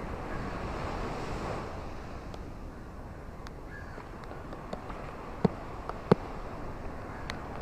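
Ocean waves washing on a shore: a steady rush that swells over the first couple of seconds and then eases. Scattered short clicks sit on top, with two sharp, louder ones about five and a half and six seconds in.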